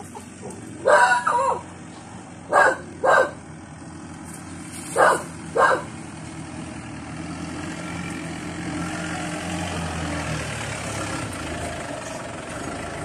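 A car's engine running as the car drives slowly up and pulls in close, growing louder in the second half. Three pairs of short, loud sounds come in the first six seconds.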